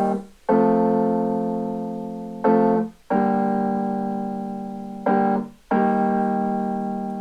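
Slow piano music played through vintage KEF Caprice 2 loudspeakers with the amplifier's loudness function engaged: sustained chords struck about every two seconds, each ringing and slowly fading.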